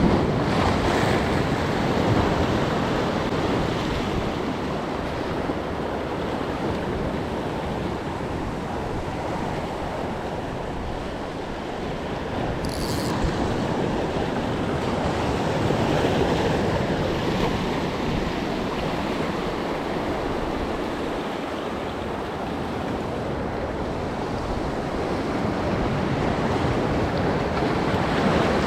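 Sea waves washing with wind on the microphone, a steady noise that swells and eases every few seconds, with one brief high hiss about thirteen seconds in.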